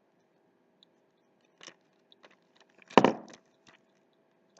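Small plastic clicks and scrapes, then one loud crackling snap about three seconds in, as the Samsung Galaxy Trend's plastic back cover is pried open by hand.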